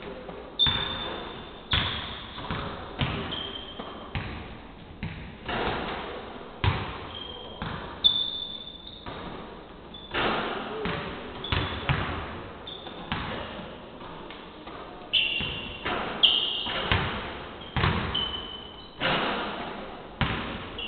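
Basketballs bouncing on a hardwood court in a large hall, irregular thuds every half-second to second, each echoing as it fades. Short high squeaks of sneakers on the floor come in between.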